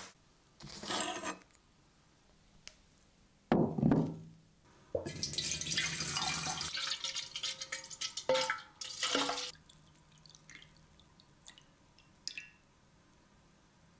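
Water splashing and pouring into a glass bowl. There are a few separate splashes, the loudest about three and a half seconds in, and a longer splashing pour a little later. Only small drips follow near the end.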